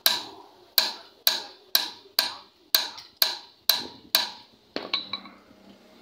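Hammer blows on the metal hub of an auto-rickshaw wheel: about nine sharp, ringing strikes at roughly two a second, then two lighter taps about five seconds in.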